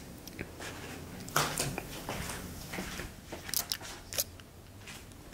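Quiet room tone with a low steady hum, broken by a few faint clicks and rustles from a handheld camera being carried and moved around.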